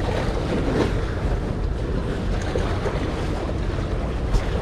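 Steady wind buffeting the microphone, with sea washing against a rock breakwater underneath.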